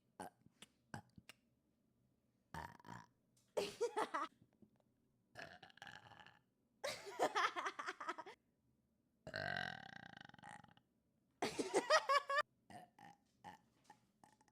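A woman burping repeatedly, about six separate loud burps with short pauses between, one near the middle longer and more drawn out than the rest.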